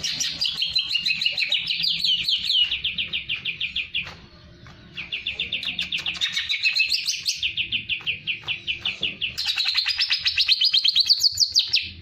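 Greater green leafbird (cucak ijo) singing a fast, chattering song of rapid repeated notes, about eight to ten a second, with a pause of about a second a third of the way in. Near the end a run of notes climbs higher in pitch.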